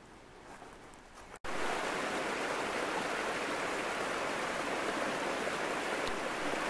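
A small woodland brook cascading down a steep, rocky channel, a steady rush of water that starts suddenly about a second and a half in.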